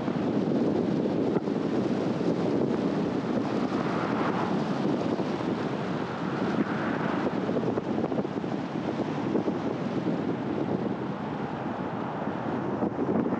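A car driving, with a steady rush of tyre and wind noise.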